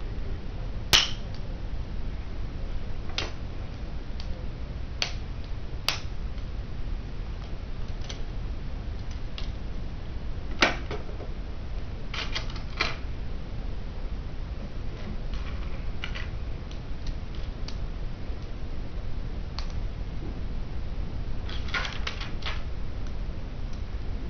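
Hard plastic Bionicle parts clicking as they are handled and snapped together, in scattered single clicks and two short quick runs, over a steady low hum.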